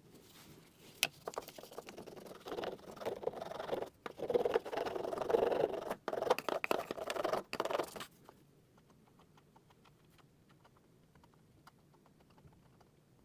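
Excess hard wax being scraped and rubbed off a repaired wooden door trim: a dense run of close-up scratching strokes that stops abruptly about eight seconds in, followed by faint light scratching.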